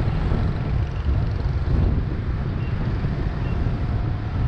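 Steady wind noise on the microphone and road noise from a motorbike riding through city traffic, mostly a low, even rumble.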